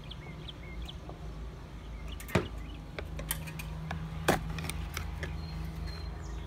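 Plastic end cover of a Honda Odyssey roof rail being pried off by hand, its clips letting go with two sharp snaps about two seconds apart and a few lighter clicks.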